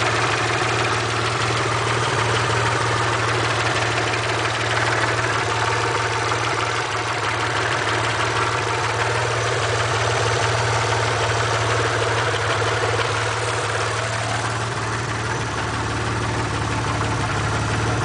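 Mitsubishi 3000GT VR-4's twin-turbo V6 idling steadily with a fast, light ticking, which the owner suspects may be lifter tick.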